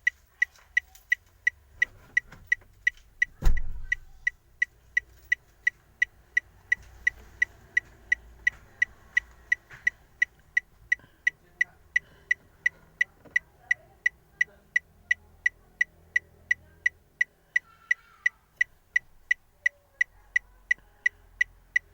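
Ford Fiesta turn signal ticking steadily, about two to three sharp ticks a second. One loud low thump comes about three and a half seconds in.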